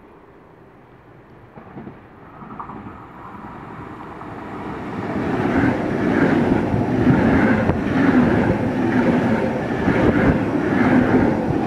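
An ICE 3 high-speed electric train approaching and passing at speed. A rushing rumble builds over the first five seconds and then stays loud, with a regular pulsing about every two-thirds of a second as the train goes by.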